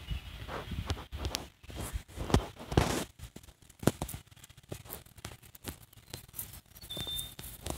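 Irregular soft clicks and rustles of a phone being handled while its touchscreen is tapped.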